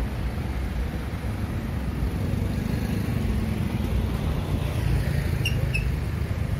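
Road traffic: cars and motorbikes running past in a steady low rumble, with two short high chirps near the end.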